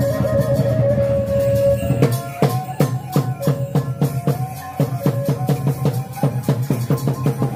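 Khmer chhay-yam drum-dance music: drums and rattling percussion beat a fast rhythm under one sustained melody line, the drum strokes coming thick and fast from about two seconds in.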